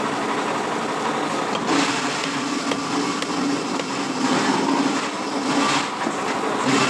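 A motor or engine running steadily amid busy background noise, swelling louder three times.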